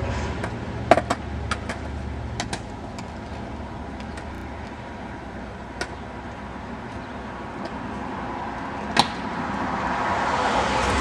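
Street traffic from passing cars: a low rumble fades over the first few seconds and another car's noise swells near the end, with a few sharp clicks scattered through.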